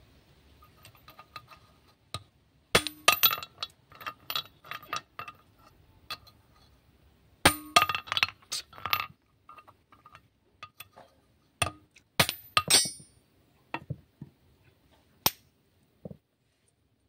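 Sharp metallic clinks and knocks in several bursts: a hammer and socket tapping on a Tata 709 cylinder head's valve spring retainers, and the steel valve springs, retainers and collets being lifted off and set down. One strike near the middle rings on briefly.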